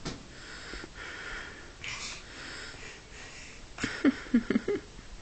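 Soft rustling and scuffing of a plush toy against fabric as a kitten wrestles with it, coming in bursts, with a few short, louder low sounds about four seconds in as the toy is shaken.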